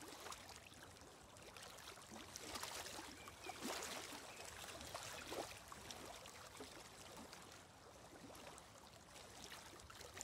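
Near silence: a faint, even rushing hiss with a few soft, brief sounds.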